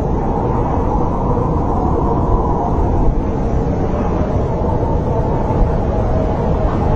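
Snowstorm wind blowing steadily: a low, continuous rush with a faint howling tone running through it.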